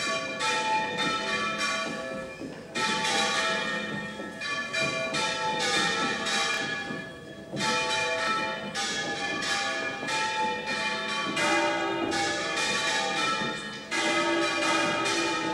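Several church bells ringing together in a fast peal, strike after strike, each one ringing on under the next.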